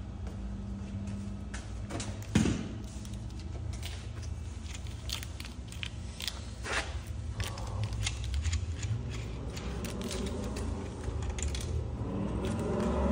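Scattered metallic clicks and clinks of hand tools and car parts being handled, with one louder knock about two and a half seconds in, over a steady low hum.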